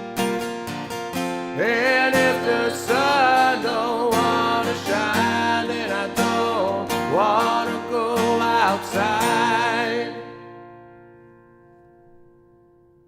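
A song with strummed acoustic guitar and a wavering sung or sustained melody line over it. It ends about ten seconds in on a final chord that rings out and fades away.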